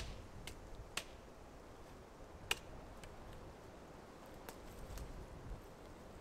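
A handful of faint, sharp clicks from gear being handled, the loudest about two and a half seconds in, over a low rustle of footsteps in dry leaf litter.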